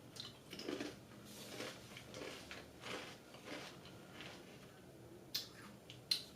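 Crunchy taco chips being chewed, a soft crunch about every half second, followed by two short sharp clicks near the end.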